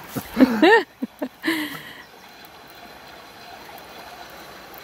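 Steady rush of a fast-flowing river, after a few short voice sounds in the first two seconds.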